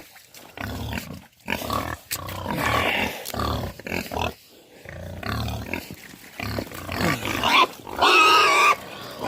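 Hungry pigs grunting over and over, then squealing loudly from about eight seconds in: they are impatient for feed they have not yet been given.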